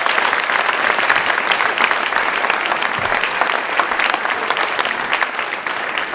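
Audience applauding: many people clapping steadily, dense and loud, tapering off slightly near the end.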